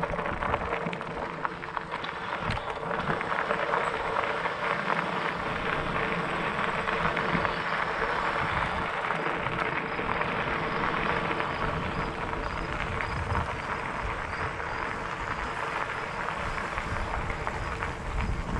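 Fat bike's wide tyres rolling and crunching over gravel, a continuous gritty crackle that is strongest in the middle of the stretch, with a faint steady hum underneath.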